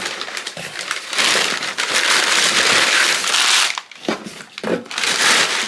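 Packaging being handled and crinkled, with a loud stretch of continuous rustling and crumpling in the middle and a few short knocks and rustles around it.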